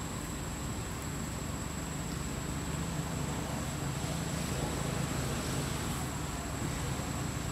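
Steady outdoor background noise: a low rumble with a constant thin, high-pitched whine over it.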